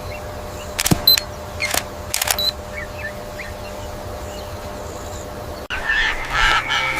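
Camera shutter clicks, four or five within about a second and a half, two of them with short high beeps. Near the end, after a sudden cut, a bird calls.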